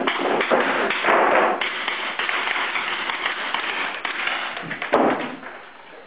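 Boots and gear of a team of marines moving through a concrete room: a dense clatter of taps and thumps, with a sharp thump about five seconds in.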